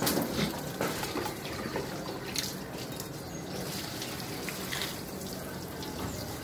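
Water poured from a pot over a seated man's head, splashing onto him and the wet concrete beneath, with a few sharper splashes.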